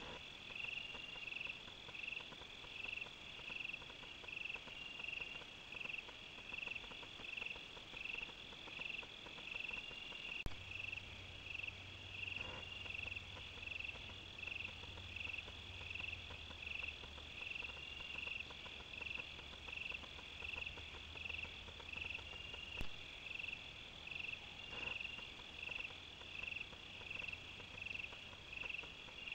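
Night insects calling: crickets chirping in an even rhythm, a little over once a second, over a steady high-pitched trill.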